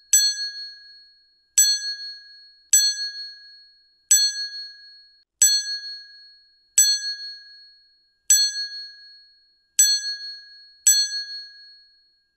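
A notification-style ding sound effect, struck nine times about once every second and a half, each a bright high chime that rings out and fades before the next, one for each viewer comment popping onto the screen.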